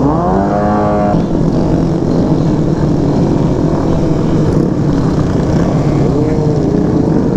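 Kawasaki Z125 Pro's small single-cylinder engine revving up sharply at the start, holding high for about a second, then dropping back to steady running with a constant rush of road and motor noise. There is a smaller rev swell near the end.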